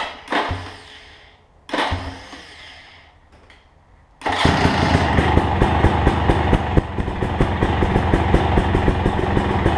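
KTM 250 XC-W's two-stroke single-cylinder engine catching about four seconds in and then idling loudly with a fast, even beat, after two short noises just before it.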